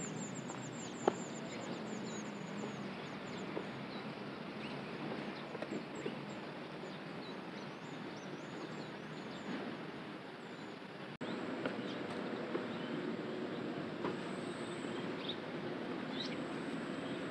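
Outdoor ambience: a steady background hiss with small birds chirping high-pitched, a fast run of chirps that stops about a second in, then scattered single calls. The background changes abruptly about eleven seconds in.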